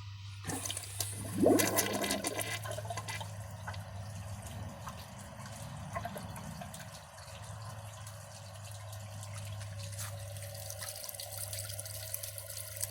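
A 2009 Gerber Ultra Flush pressure-assist toilet being flushed: a clatter about a second and a half in, then water running steadily into the bowl. The tank has been fitted with standard gravity tank parts instead of its pressure vessel, so it gives only a weak gravity run rather than a pressure-assisted flush.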